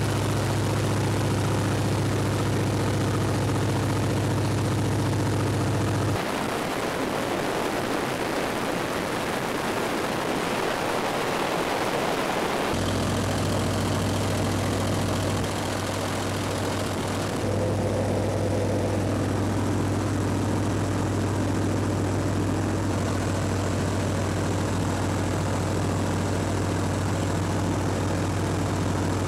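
A 1941 Waco biplane's engine and propeller drone steadily in flight, a constant low hum under the rush of wind in the open cockpit. The sound changes abruptly about six seconds in and again about thirteen seconds in.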